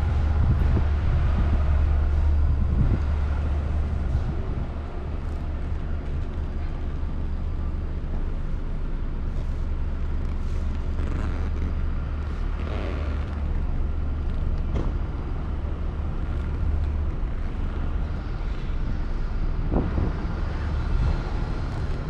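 Steady low rumble of a car being driven: engine and tyre-on-road noise.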